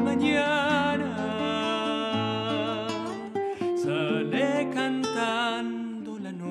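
Instrumental passage of an Argentine zamba: a transverse flute plays a melody with a wavering vibrato over acoustic guitar accompaniment.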